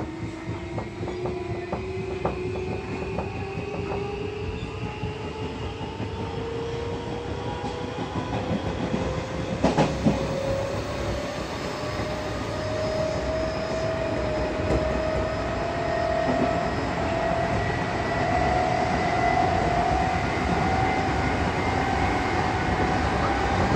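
Odakyu 8000 series electric train with field-chopper-controlled DC traction motors accelerating, heard from inside the car. The motor whine rises steadily in pitch over wheel and track running noise, with a brief clatter of rail joints about ten seconds in.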